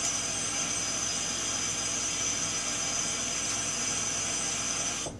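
Tap water running hard into a sink, a steady rushing hiss with a high whine in it, shut off suddenly near the end.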